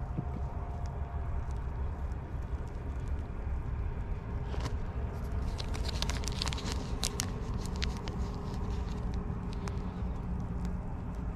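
Steady wind rumble on the microphone, with a small plastic bag of maggots crinkling in quick clicks between about five and eight seconds in as fingers pick through it.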